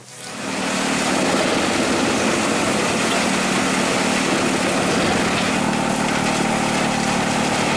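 Heavy forestry machine running steadily, a loud engine hum under a wide mechanical hiss that rises over the first second and then holds level.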